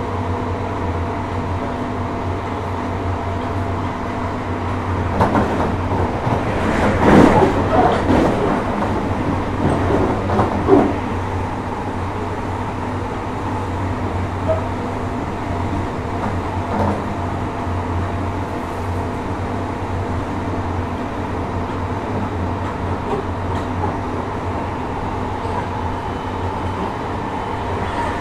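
Inside a JR Hokkaido 733 series electric train running at steady speed: a steady rumble with faint steady tones. From about five to eleven seconds in, louder irregular knocks and clatter of the wheels over the track, loudest around seven seconds.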